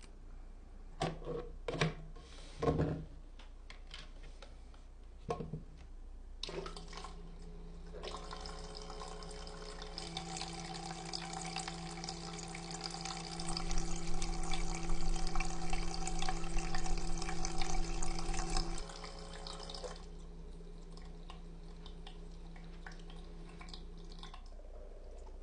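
Air humidifier running with a steady hum and water bubbling and trickling, after a few clicks. The water is loudest midway, then the sound dies away near the end.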